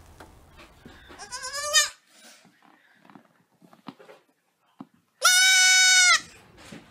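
Baby goat bleating: a shorter call rising in pitch about a second and a half in, then one loud, long bleat near the end.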